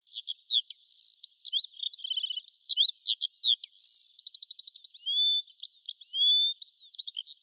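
A songbird singing a long, varied, high-pitched song of quick falling whistles and chirps, with a few held whistles, rapid runs of repeated notes and rising glides.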